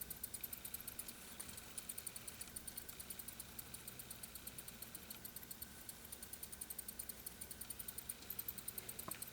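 Rapid, very high-pitched squeaks coming from inside a wall, repeating steadily several times a second; the listener guesses they may come from a bat.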